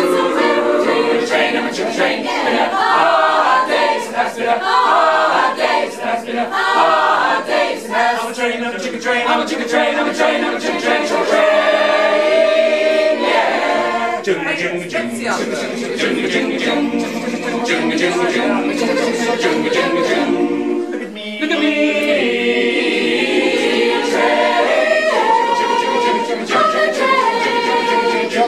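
Mixed choir of men's and women's voices singing a cappella in parts, with a brief dip in loudness about two-thirds of the way through.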